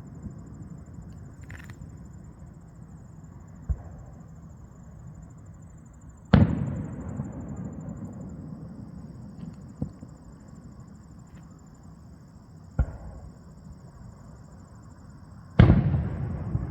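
Fireworks aerial shells bursting: five booms a few seconds apart, the two loudest about six seconds in and near the end, each followed by a long rolling echo.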